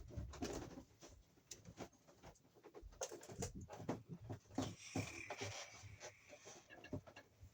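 Electrical cable being handled and fed along: irregular rustling, scraping and light knocks and clicks.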